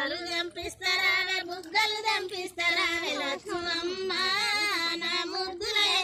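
A high voice singing a melody with wavering, ornamented notes over a steady held tone underneath.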